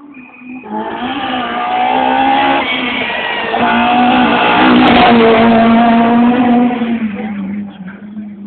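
Rally car engine running hard at high revs as the car approaches, is loudest as it passes about five seconds in, and fades away near the end.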